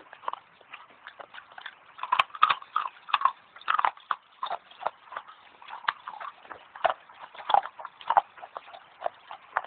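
Dry clay being bitten and chewed fast, a dense run of sharp crunchy clicks close to the microphone, louder in bursts a couple of seconds in and again near the end.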